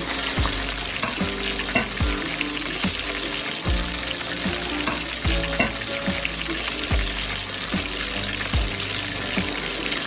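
Chicken pieces deep-frying in hot oil in a stainless steel pan, a steady sizzle. Background music with a steady beat plays over it.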